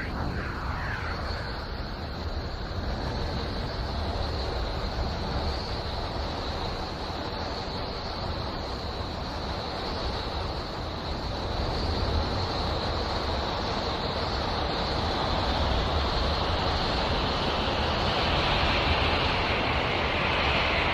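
Sonified spacecraft radio recording: a steady static hiss with a high band of noise. A whistle falls in pitch in the first second, and the hiss grows louder and brighter over the last few seconds.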